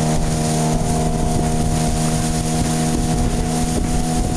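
Boat motor running at a steady, even speed, a constant drone with no change in pitch.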